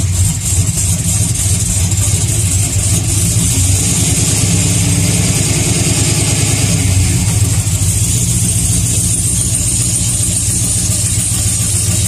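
Cammed GM V8 truck engine with long-tube headers idling steadily, with the slow, rhythmic tick of an exhaust leak at a header primary, where the header gasket has blown out.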